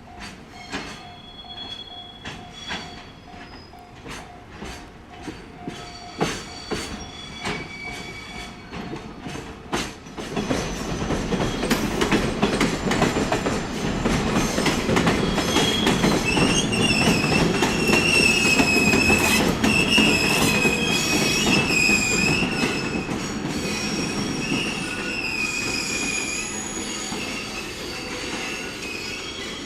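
A train passing on rails: regular sharp clicks for the first ten seconds or so, then a loud rumble as the train arrives, with the wheels squealing in a high, wavering tone through the middle before it fades.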